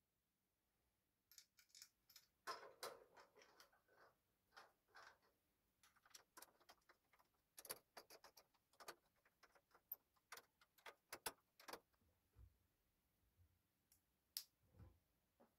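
Faint handling noises as a 120 mm PC fan is fitted onto a radiator: an irregular string of small plastic and metal clicks, taps and knocks, with a sharper click near the end while the fan's cable is being connected.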